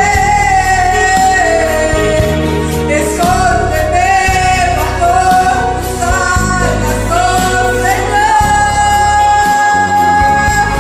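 A woman singing a slow, sustained melody over an instrumental karaoke backing track, with long held notes, one of them held through the last couple of seconds.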